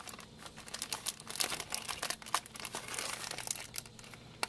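Clear plastic zip-top bag crinkling and rustling in the hands in irregular crackles as a small box is worked out of it, dying away near the end.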